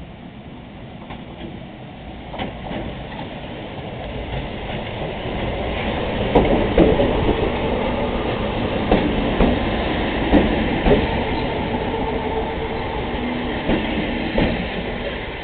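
Echizen Railway train with nose-suspended (tsurikake) traction motors running past, its motor and gear whine growing louder from about four seconds in. Wheels clack over rail joints several times in the middle of the pass.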